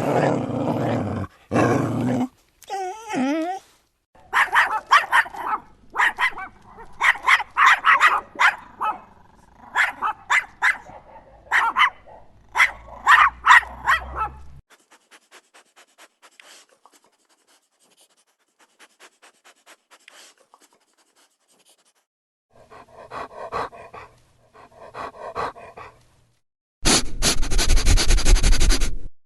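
A dog growling briefly, then puppies barking and yipping in quick bursts. Next comes a dog's rhythmic panting breaths, faint at first and then louder, and near the end a dog sniffing loudly.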